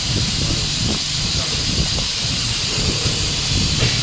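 Steady hiss with a low hum underneath, and a few faint knocks.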